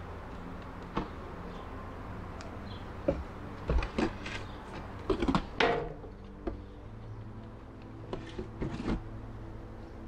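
Wooden beehive boxes and frames knocking and scraping as the hive is handled during an inspection. There is one knock about a second in, a busy run of knocks and scrapes around the middle, and a few more near the end.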